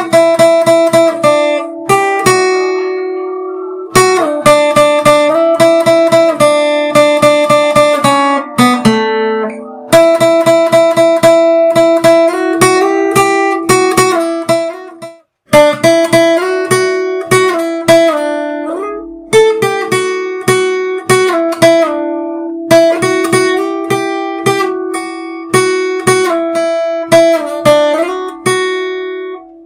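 Instrumental background music: a strummed acoustic guitar playing chords in a steady rhythm, with a short break about halfway through.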